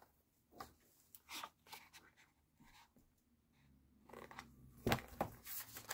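A large hardback picture book being handled: several soft rustles and taps of paper pages and cover, with a sharper knock about five seconds in.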